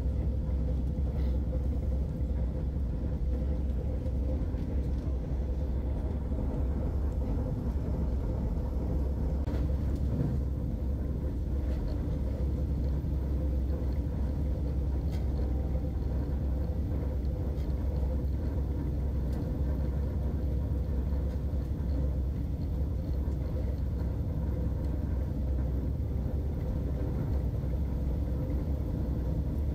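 Steady low rumble of the Vande Bharat Express electric train set running along the track, heard from inside an air-conditioned chair car, with a faint steady hum.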